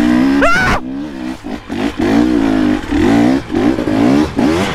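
KTM two-stroke dirt bike engine being throttled on and off at low speed, its revs rising and falling over and over, with one sharp rev and a brief cut a little under a second in.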